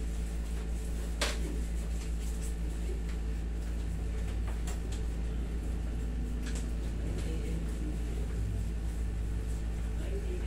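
Steady low hum of a room air conditioner running, with a single sharp click about a second in.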